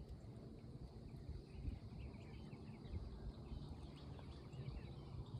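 Faint outdoor pond-side ambience: many small birds chirping in quick, scattered notes over a low rumbling noise.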